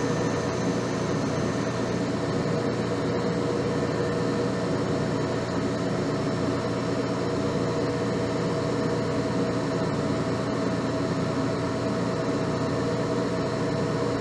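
Metal lathe running steadily, its motor and spindle drive giving an even mechanical hum with several steady tones.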